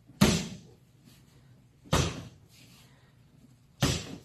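Three sharp gloved smacks about two seconds apart, each with a short room echo: boxing-glove jabs striking in a jab-and-slip drill.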